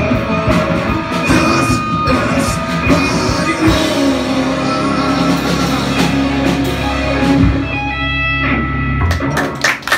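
Live heavy-metal band with distorted electric guitars, bass and drums playing, then settling on a final held chord about four seconds in that rings until it cuts off abruptly near the end, when clapping breaks out.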